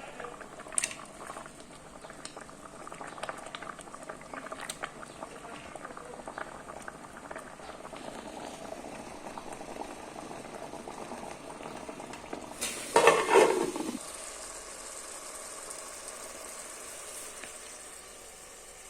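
Fish cooking, bubbling and crackling steadily with scattered pops. About thirteen seconds in, a loud burst of noise lasts about a second, after which a softer steady hiss remains.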